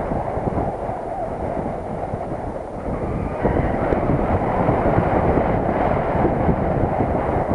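Wind noise from airflow over the camera microphone during paraglider flight: a steady rushing rumble that eases slightly and grows louder again about three and a half seconds in.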